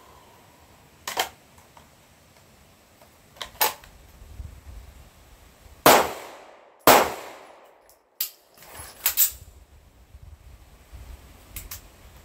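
Sig Sauer P226 pistol firing slow, deliberate single shots spaced about one to two seconds apart. The two loudest shots come about a second apart near the middle, each with a short ringing tail.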